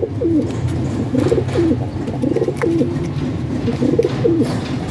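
Male Faqeer Gul domestic pigeon cooing to its mate: a string of short, repeated coos, about one a second.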